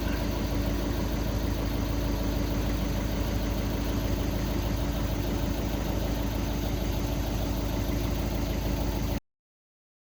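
Skoda Octavia II diesel engine idling steadily, running again after its crankshaft position sensor (G28) was replaced. The sound stops abruptly about nine seconds in.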